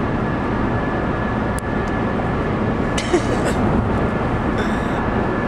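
Steady road and engine noise heard from inside a moving minivan's cabin: an even low rumble with a faint steady whine above it.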